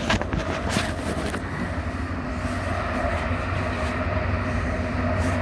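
Commuter train running, heard from inside the carriage: a steady low rumble with a held whine. A few footsteps and small knocks sound in the first second or so.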